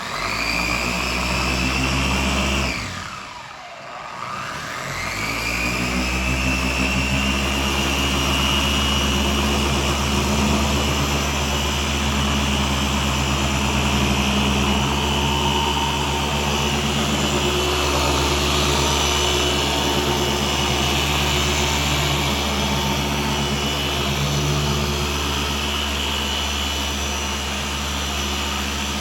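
Electric car polisher running steadily with a motor whine as it polishes paint to a final shine. About three seconds in, its pitch falls and the sound dips, then it spins back up and holds steady.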